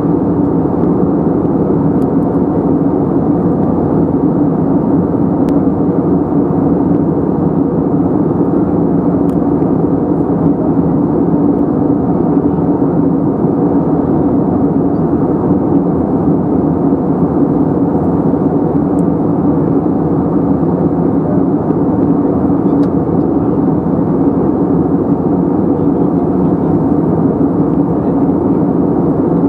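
Cabin noise inside an Airbus A320neo in flight, heard from a window seat over the wing: the steady rumble of airflow and its Pratt & Whitney PW1127G geared turbofan engines, with a low hum and no change in level.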